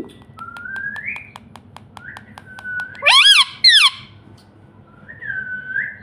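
Indian ringneck parakeet whistling short rising notes while its beak taps quickly and evenly on a tablet screen, about five taps a second. About three seconds in it gives two loud squawks that swing up and down in pitch, and near the end it holds a steady whistle.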